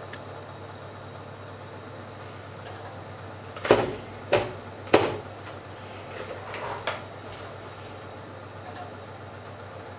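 Three sharp knocks about two-thirds of a second apart, then a few softer clicks, as a plastic-framed digital clock is handled and lifted off a wooden board, over a steady low hum.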